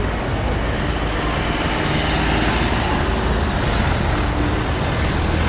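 Street traffic: cars and a minibus passing at low speed, a steady mix of engine hum and tyre noise that grows a little louder about two seconds in.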